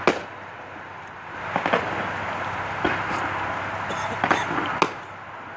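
Aerial fireworks bursting overhead: a string of sharp bangs, one just after the start, a few around two and three seconds in and a cluster near the end, over a steady crackling rumble.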